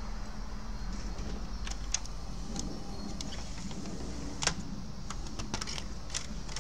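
Irregular small clicks and light plastic knocks as a disc and the disc clamp are handled in an opened 1980s CD player's loading mechanism, over a steady low hum. The player is trying to play the disc.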